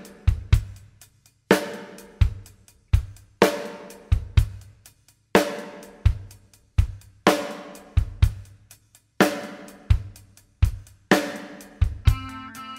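Drum kit playing a slow, heavy beat: low kick drum thumps and smaller hits between loud accented strokes that ring out with cymbal wash about every two seconds. A sustained chord from other instruments comes in near the end.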